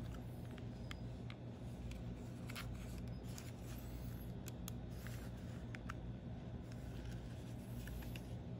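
Small, irregular plastic clicks and scrapes as fingers press and slide the battery-cover latch on the underside of a wireless mouse, over a steady low hum.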